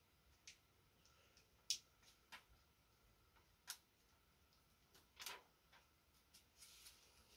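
A few faint, sharp clicks and small taps, spaced irregularly a second or two apart, from handling things at a desk. The loudest comes about five seconds in.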